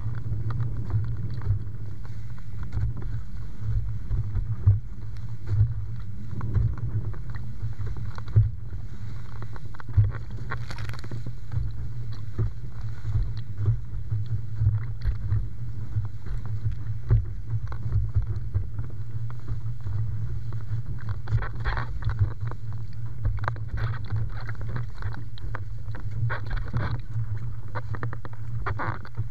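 Wind buffeting the camera's microphone in a steady low rumble while windfoiling, with water rushing and splashing under the board. A louder hiss of spray comes about a third of the way in and again about two-thirds through.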